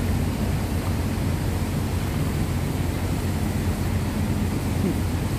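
Steady low rumble with a constant hum from the engines of a large ship close by.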